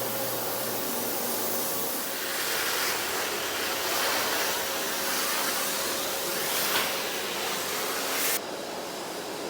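A steady rushing machine noise, which drops off suddenly near the end.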